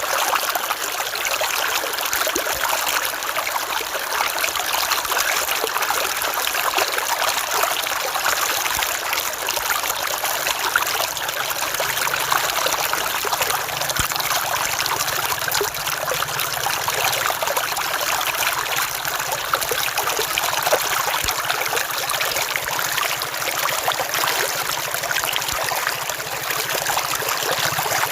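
River water flowing and trickling, a steady rush dense with small splashes and no pauses.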